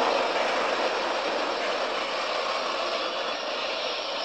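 Flames of a car fireball burning with a steady rushing noise that slowly fades.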